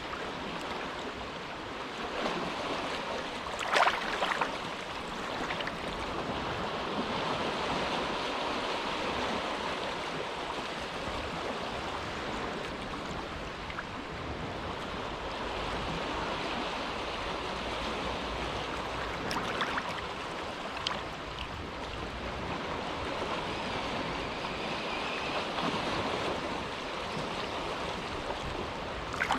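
Small, quiet waves lapping and washing along the shore of a sheltered inlet, a steady wash with a few brief louder splashes.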